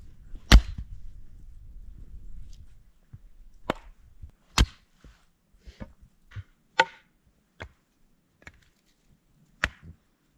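Firewood being chopped: sharp strikes at uneven intervals, about five loud ones among fainter knocks, over a low rumble during the first few seconds.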